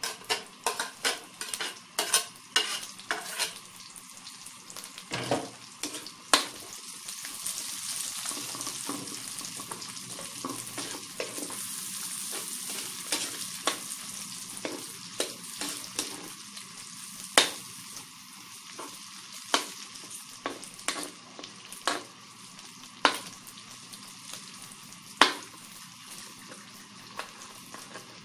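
Diced pork, garlic and onions sizzling in hot oil in a large aluminium wok while a spatula stirs, clicking and scraping against the pan. The clicks come quickly at first, then every second or two. The sizzle swells a few seconds in.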